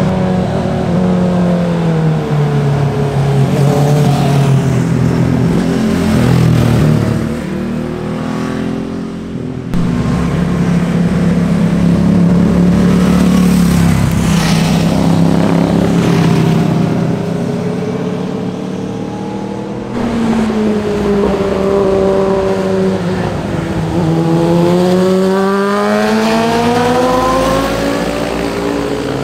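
Sport motorcycle engines passing by, revving hard. Each engine note drops and then climbs again as the bike accelerates, with gear changes. Two abrupt cuts, about ten and twenty seconds in, switch to another bike.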